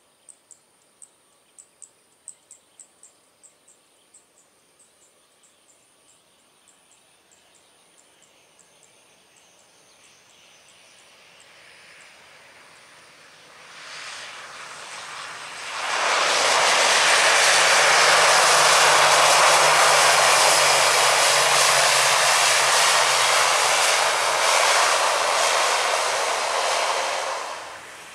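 ATR 72-600 twin-turboprop airliner landing. It grows louder as it comes in and touches down, then runs loud and steady for about ten seconds as it rolls along the runway, and drops away sharply near the end.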